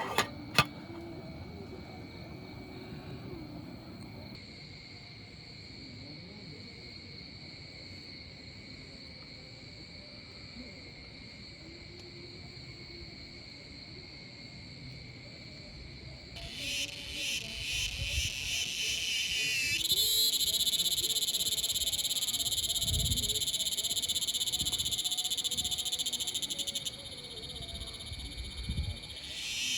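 A chorus of calling animals: a steady high-pitched trilling runs throughout, and about sixteen seconds in a louder, rapidly pulsing chorus joins it. Two sharp clicks sound at the very start, and a few soft low thumps come in the second half.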